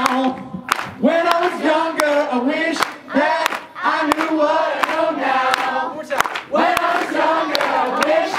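A group of voices singing a chorus together, kept to a steady beat of hand claps at about two to three a second, with no instrument playing.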